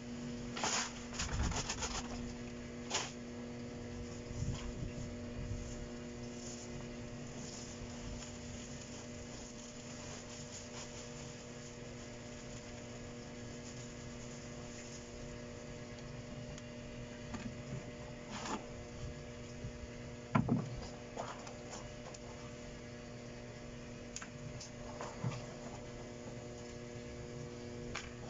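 A steady electrical hum runs throughout. In the first two seconds granular cat litter pours from a plastic bag into a plastic tub with a hissing rustle, and a few short rustles and soft knocks come later.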